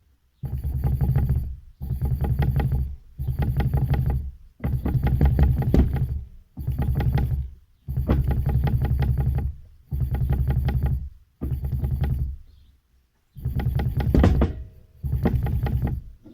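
Knocking from a worn rear strut top mount on a Toyota Caldina T210: about ten bursts of fast rattling knocks, each a second or so long, with short pauses between them.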